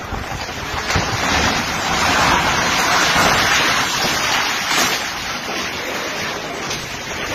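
Storm wind rushing and buffeting the microphone, a loud, even roar that swells for a few seconds in the middle.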